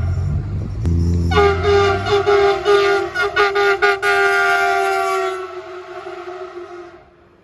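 Train horn sounding a chord of several tones over the low rumble of the train. A short break is followed by a louder blast that wavers in quick pulses, then holds and fades away over the last couple of seconds.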